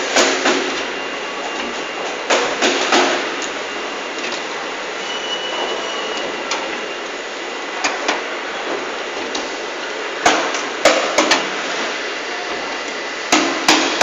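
Groups of two to four sharp knocks every few seconds on a solar water heater tank assembly line, over a steady hum of factory-floor noise.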